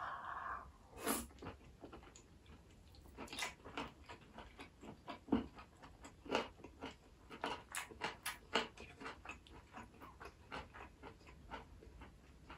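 A person chewing a mouthful of braised green-onion kimchi with pork belly, picked up by a clip-on mic on the chest: a string of soft, irregular mouth clicks and smacks, several a second at times.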